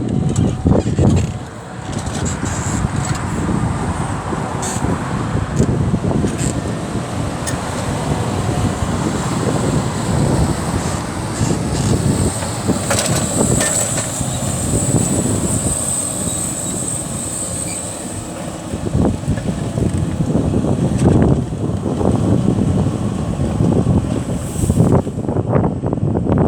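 Fendt 936 tractor engine running steadily while pulling a plough, with wind buffeting the microphone in uneven gusts.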